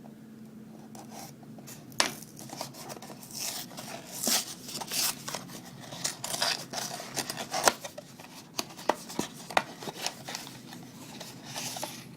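A small blind-box toy package being opened by hand. About two seconds in, a run of rustling, scraping and tearing of packaging begins, with sharp clicks.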